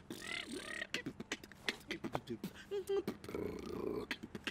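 Beatboxing: a fast run of mouth-made drum hits and clicks, with short pitched vocal sounds woven in near the start.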